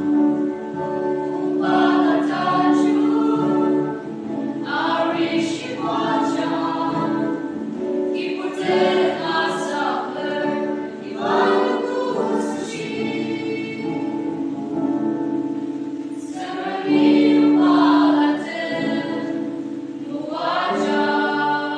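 A mixed choir of young men and women singing together in phrases of long held notes, loudest about two-thirds of the way through.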